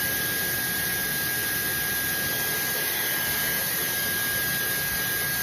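High-speed brushless-motor hair dryer running steadily: an even rush of blown air with a thin steady whine over it.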